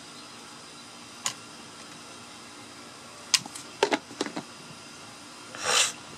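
Sharp clicks and knocks of a whole fish and knives being handled on a wooden table, several in quick succession midway, then a short scrape near the end.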